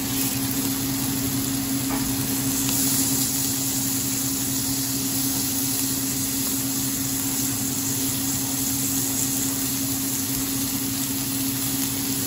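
Cubes of sirloin steak sizzling steadily in foaming butter in a very hot cast iron skillet as they are laid in to sear. Under it runs a steady low hum.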